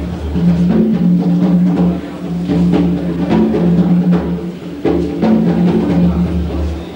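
Live percussion music: scattered drum strikes over held low tones that break off and resume every second or two.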